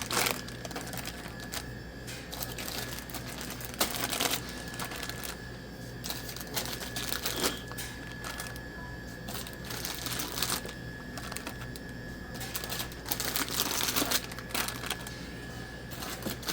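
Plastic snack bags of Famous Amos cookies crinkling as they are handled and pushed into a vending machine tray's spiral coils, with scattered irregular clicks and knocks. A faint steady hum runs underneath.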